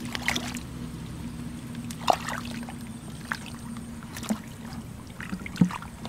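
Hands squelching and splashing in shallow muddy water, with a handful of short wet slaps, the loudest about two seconds in and near the end, over a steady low hum.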